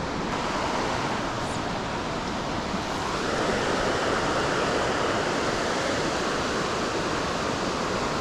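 Creek water rushing steadily, an even wash of noise with no breaks.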